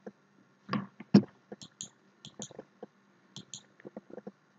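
Faint, scattered short clicks, a few a second and several in quick pairs, with two louder clicks about a second in.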